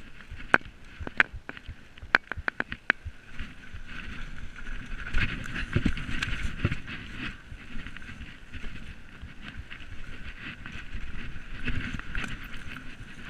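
Mountain bike descending a rough dirt singletrack: tyres on dirt and the bike rattling, with a quick series of sharp clacks in the first three seconds as it hits bumps and heavier thuds a little later.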